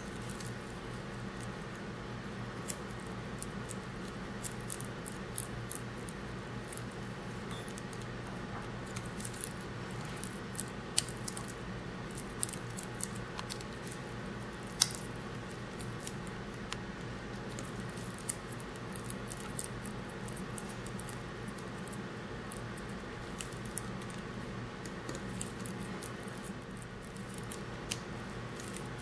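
Small hand ratchet clicking and its socket clinking on metal as the bolts on a Hydra-Cell pump head are snugged down one after another: light, irregular clicks, with a few sharper ones around the middle, over a steady low hum.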